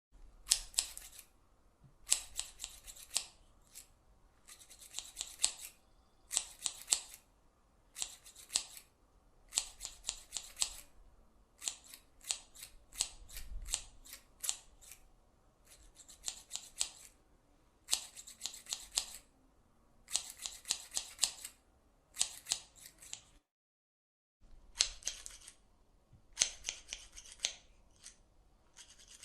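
Scissors snipping over and over in short runs of quick, crisp cuts, with a pause of about a second late on.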